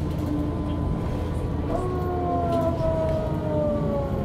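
Running noise of a 1998 Mercedes-Benz O 405 N2 city bus: a steady low engine drone, joined about two seconds in by a whine that slowly falls in pitch.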